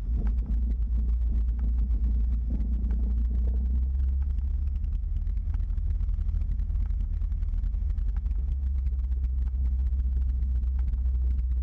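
Piper PA-28-180 Cherokee's four-cylinder Lycoming engine running at low power while the plane taxis, a steady low rumble.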